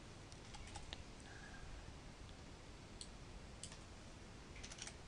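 Faint computer keyboard and mouse clicks over a low hiss: a few scattered key taps about a second in and around the middle, and a short run of taps near the end, as numbers are typed into a colour dialog.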